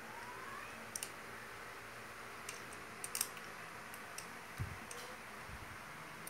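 Scattered light clicks and ticks of a screwdriver working a screw inside a metal electric-drill chuck, a cluster of sharper clicks about halfway through, then two soft low thumps near the end as the chuck is handled.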